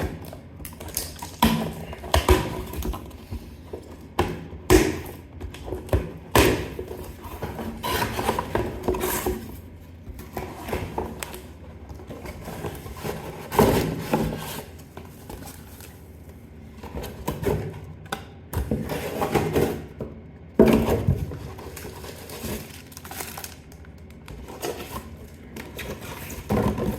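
A cardboard product box being opened and handled by hand: irregular knocks, scrapes and rustles of cardboard and packing.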